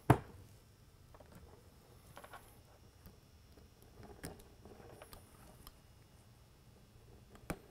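Small clicks, knocks and rustles of a die-cast aluminium LED spotlight lighthead being handled on a tabletop, with a sharp click at the start and another near the end.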